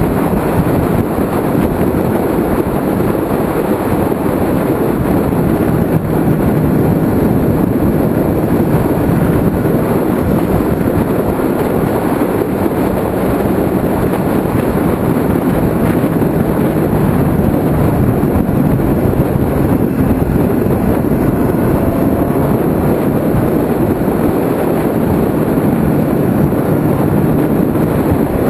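Kawasaki ZX-6R sport bike riding at speed through curves, its inline-four engine running steadily under heavy wind rush on the microphone.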